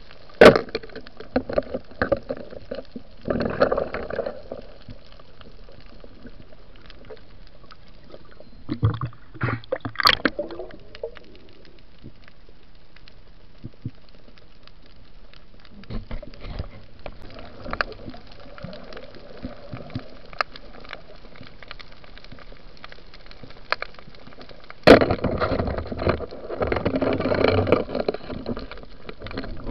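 Underwater sound on a night spearfishing dive: a steady hiss broken by a few sharp knocks and by short bursts of bubbling and gurgling water, the longest and loudest burst coming near the end.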